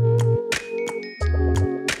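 Outro music with a deep bass line, held chords and a steady beat of percussive hits.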